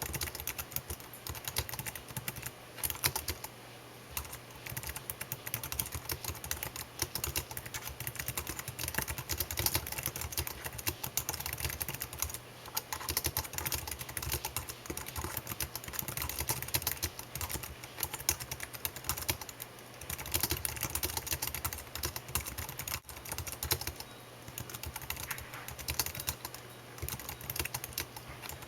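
Typing on a computer keyboard: rapid key clicks in long flurries with short pauses, over a faint steady low hum.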